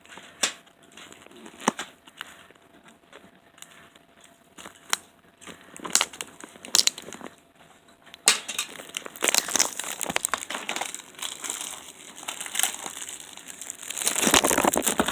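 Plastic shrink-wrap crinkling and tearing as it is peeled off a Blu-ray case, with scattered sharp crackles. The handling gets busier and louder about halfway through.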